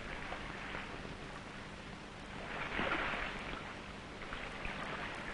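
Sea wash and wind noise, with a wave surging up and falling away about three seconds in.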